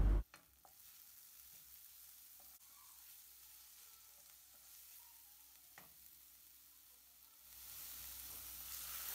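Vegetables frying in a nonstick pan: mostly very quiet, with a few light clicks as a wooden spoon stirs them, then a sizzle rises and grows louder near the end.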